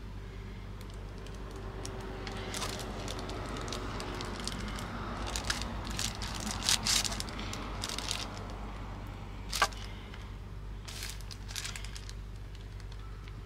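Rustling and light clicking of small objects being handled, with a sharper click about nine and a half seconds in, over a steady low hum.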